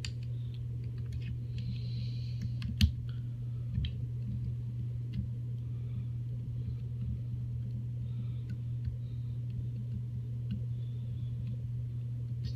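Small scattered clicks and taps of a hex key being worked in a screw on an airsoft RPK to loosen it, with one sharper click about three seconds in, over a steady low hum.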